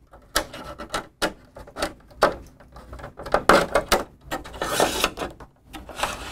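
Hands handling a clear one-piece polycarbonate weather shield and pulling an electrical cable through it: irregular plastic clicks, knocks and rubbing, with longer scraping stretches about three and a half seconds in and again near five seconds.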